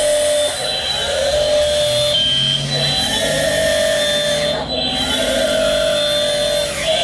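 1/16-scale RC Volvo EC160E excavator's electric motors whining, the pitch shifting up and down as it works.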